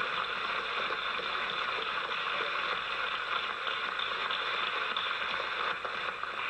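A steady hiss, with no distinct sounds standing out from it.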